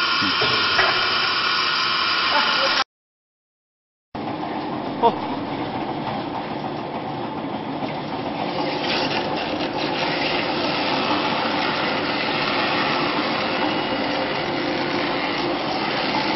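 Tyre recycling machinery running steadily: a continuous motor and gear hum with fixed whining tones. The sound cuts out completely for about a second roughly three seconds in, then the machine noise resumes, with one sharp knock shortly after.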